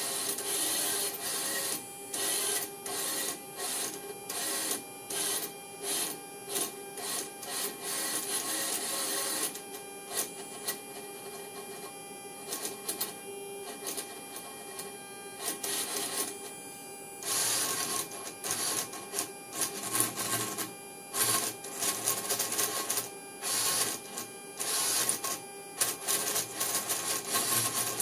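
Servo motors and gear trains in a Collins 331A-8K horizontal situation indicator whirring in short stop-start bursts, driving the compass card and course arrow quickly round to follow hand-turned synchros.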